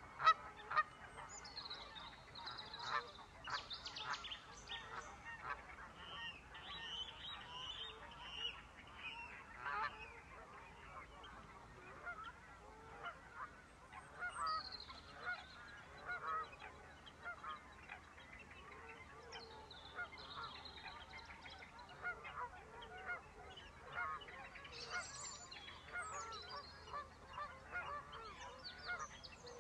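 Many birds calling at once: a continuous chatter of short calls, with higher, clearer bird calls cutting in now and then.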